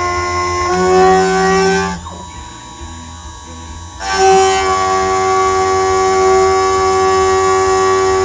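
Endmill on a BF20 milling machine squealing as it cuts a contour: a steady, high, singing tone with several pitches at once. The pitch steps up just under a second in, the tone drops away to a quieter cutting noise for about two seconds, then resumes. This chatter comes from a pretty blunt endmill taking cuts that are too wide.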